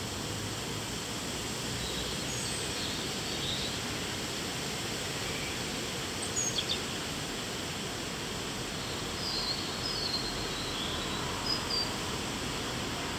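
Steady outdoor background hiss with scattered short, high bird chirps: a few about two to three seconds in, a brief pair in the middle, and a cluster later on.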